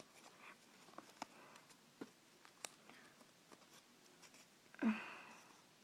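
Faint clicks and taps of plastic Lego pieces being handled and fitted together, scattered irregularly. A brief, louder sound falling in pitch comes near the end.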